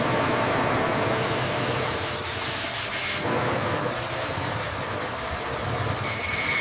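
Steady mechanical factory noise that changes character a little after three seconds, with a brief high tone near the end.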